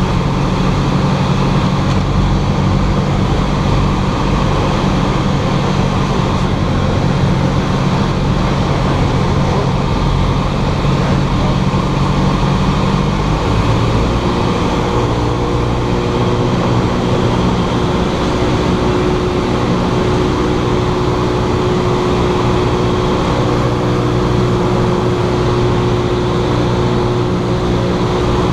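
Cessna 172's piston engine and propeller droning steadily; about halfway through, the engine note shifts to a different pitch and holds there.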